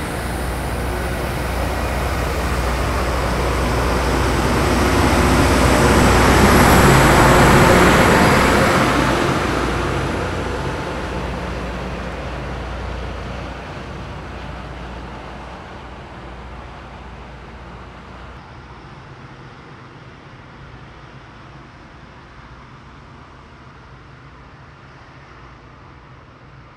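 Freight train passing close, a steady rumble of wheels on rail with a low hum underneath, growing to its loudest about seven seconds in and then fading away as the train moves off.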